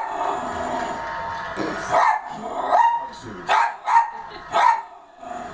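Small dog barking repeatedly: a run of about five sharp barks from about two seconds in.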